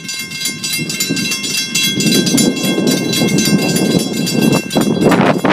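Approaching steam locomotive, Viscose Company #6, running as a steady dense rumble with rapid repeated strokes. A louder rushing noise sets in about five seconds in.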